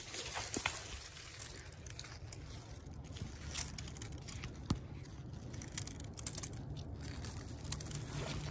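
Crunching and rustling in dry fallen leaves, with scattered sharp clicks and a low rumble.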